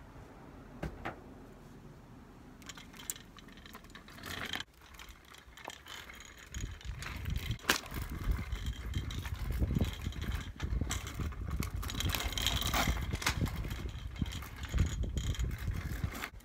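Kick scooter's small wheels rolling over rough asphalt close by, a rumbling rattle dotted with clicks and knocks. It gets much louder from about six seconds in.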